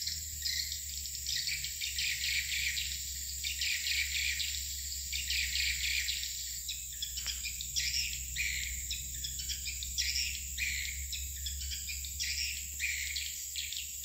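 Swiftlet calls: rapid, repeated short chirps over a steady high-pitched drone and a low hum.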